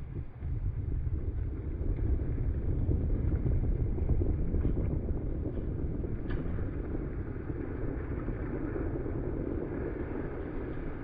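Strong wind buffeting the microphone over the hiss of water rushing past a sailboat under way, with a faint click about six seconds in.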